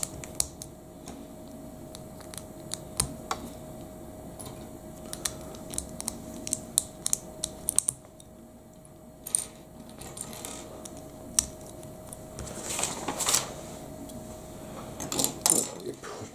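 Plastic LEGO bricks clicking and snapping together as they are handled and pressed into place, in scattered sharp clicks. A couple of louder rustling scrapes come near the end.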